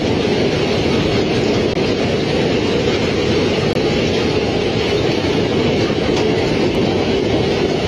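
Gale-force wind and hail in a violent hailstorm: a loud, steady, dense rush of noise with hailstones hammering down.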